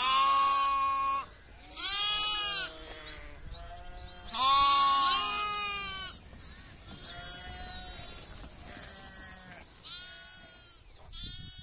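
Sheep bleating in a sheepfold: three loud bleats in the first half, then several fainter ones overlapping.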